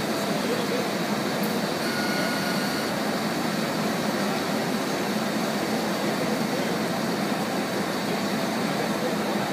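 Steady mechanical drone and hiss during aircraft deicing, with a low hum underneath, holding even and unchanging throughout.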